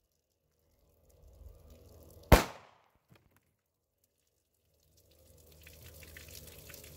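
A single sharp 9mm pistol shot from a Smith & Wesson M&P Shield loaded with Federal HST 150-grain hollow points, about two seconds in. From about five seconds, water spills and trickles from a jug the shot knocked over.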